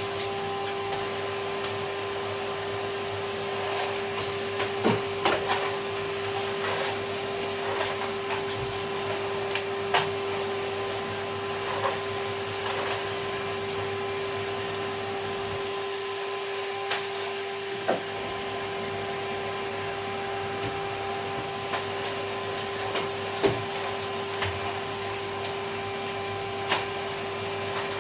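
Vacuum cleaner running with a steady hum, with scattered sharp clicks and knocks throughout.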